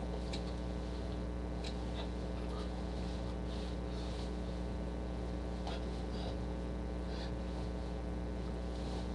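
Steady electrical mains hum with a buzz of evenly spaced overtones, over faint, brief rustles scattered through.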